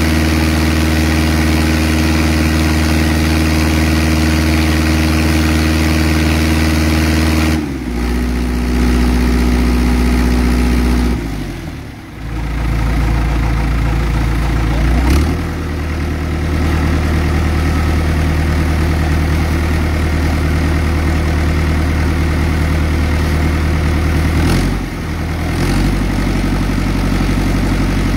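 Engine-driven deck water pump running steadily as it feeds a high-pressure washdown hose, with the hiss of the water spray over it. The engine's pitch shifts down a few times, with a brief dip in speed and loudness about twelve seconds in.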